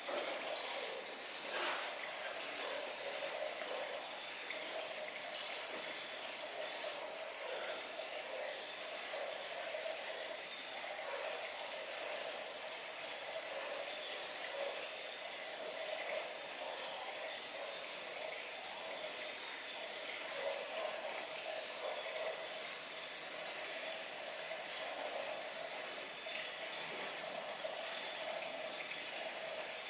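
Wet, sudsy shampoo scrub at a salon shampoo basin: fingers working through lathered hair make faint squelching crackles over a steady, water-like hiss.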